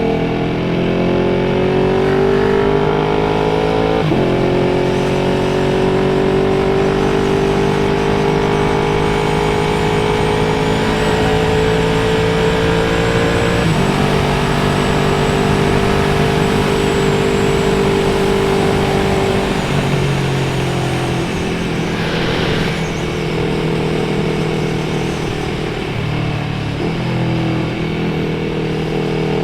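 Motorcycle engine pulling hard under acceleration, its pitch climbing steadily and dropping sharply at upshifts about 4 seconds and 14 seconds in. It eases off and falls in pitch near 20 seconds, with a short blip of the throttle later, over steady wind and road noise.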